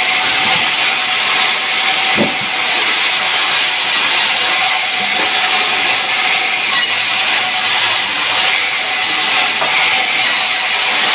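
Sawmill saw cutting through a sengon log: a loud, steady hissing rasp that holds an even level throughout, with a brief knock about two seconds in.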